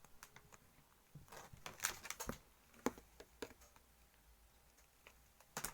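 Faint, scattered clicks and rustles of plastic chocolate molds being handled, with a small cluster of taps about a second and a half in and another near the end.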